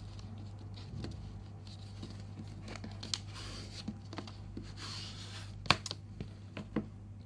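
Sheet of origami paper being folded and creased by hand: soft rustling and crinkling with scattered sharp clicks, the loudest a little before six seconds in, over a steady low hum.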